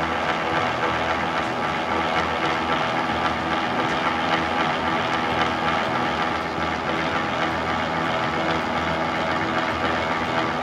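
Electric noodle-cutting machine running with a steady hum, its grooved cutter rollers slicing a sheet of noodle dough into strands.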